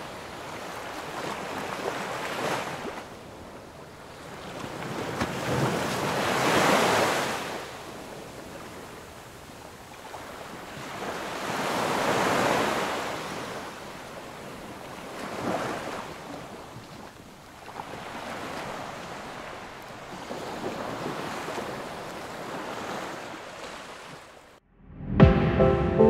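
Sea waves washing in slow surges every few seconds, with wind; music comes in near the end.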